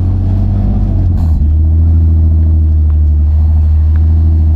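Car engine running steadily at low revs, a deep even drone, with a brief wobble in pitch and a click about a second in.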